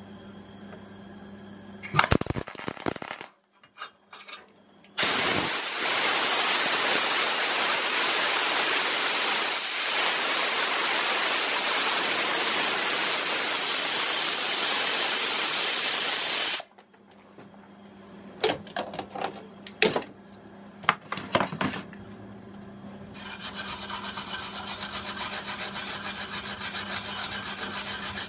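A brief welding tack crackles about two seconds in. A compressed-air blow gun then hisses steadily for about eleven seconds, cooling the fresh tack weld. A few knocks follow, and a wire brush scrubs the metal near the end.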